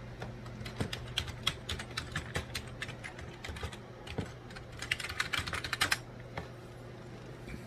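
Typing on a computer keyboard, an irregular run of key clicks that quickens into a fast flurry about five seconds in, over a steady low hum.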